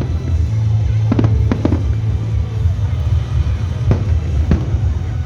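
Aerial fireworks shells bursting over a steady low rumble: a quick cluster of sharp bangs between one and two seconds in, then two more single bangs later.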